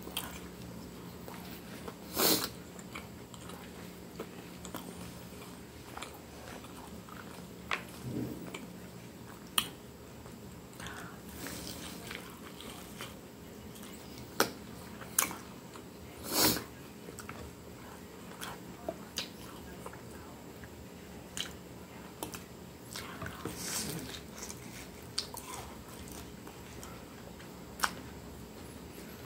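Close-up chewing and mouth sounds of a person eating a fried chicken coxinha: irregular wet smacks and clicks, a handful louder than the rest.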